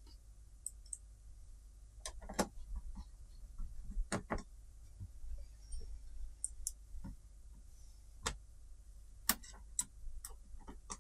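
Irregular small clicks and light knocks of screws and plastic panel parts being handled and screwed back into a flat-screen TV, a few louder ones spaced a couple of seconds apart, over a low steady hum.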